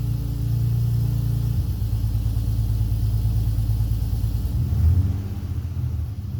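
2003 Acura CL Type S's 3.2-litre V6 (J32A2) running just after its first startup following an intake manifold install, idling with a brief rise in level about five seconds in.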